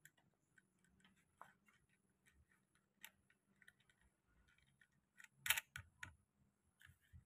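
Faint small metallic clicks and taps of steel washers and bolts being handled and fitted onto the ice machine's top cover, with one louder clack about five and a half seconds in.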